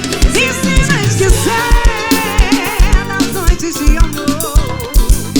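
Live band music: a wavering lead melody over a steady kick-drum beat and bass, with no sung words.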